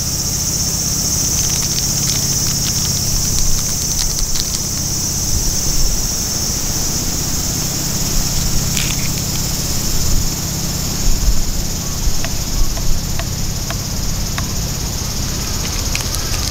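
Insects chirring in a steady high-pitched drone that thins out near the end, over a low steady rumble, with scattered light clicks and ticks.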